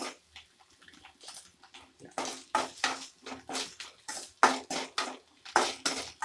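Slotted metal spatula scraping and clattering against an aluminium kadai while stirring dried prawns frying in a little oil. The strokes come in a quick run of about three a second, starting about two seconds in.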